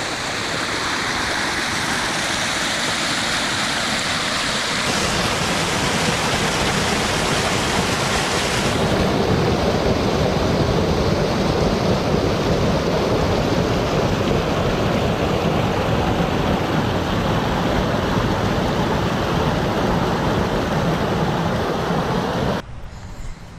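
Water rushing and churning over a concrete dam spillway: a loud, steady rush of moving water whose tone shifts twice between shots, then cuts off suddenly near the end.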